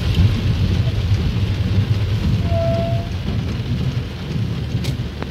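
Torrential rain drumming on a car's roof and windshield, heard from inside the cabin as a steady, low rush.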